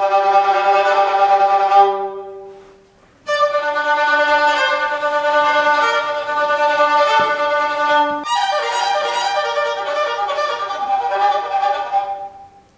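Solo violin on a small fractional-size instrument, bowed in sustained, singing notes. A phrase dies away about two seconds in, then after a short break the playing resumes with two more phrases of held notes that fade out near the end.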